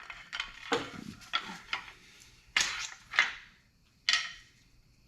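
Metal engine parts and hand tools clinking and knocking against each other in a series of sharp clinks, the loudest two about two and a half and three seconds in.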